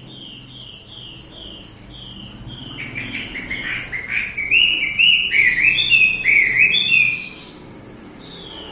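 A small songbird, the bird known locally as a wambi, singing: a steady run of repeated short falling chirps, then from about three seconds in a louder, faster string of varied up-and-down whistled notes that stops about seven seconds in.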